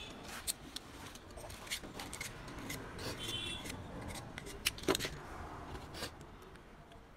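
Utility knife cutting and scraping a thin insulating strip used as a slot wedge for an alternator stator: a string of short, sharp cuts and scrapes with a few louder clicks.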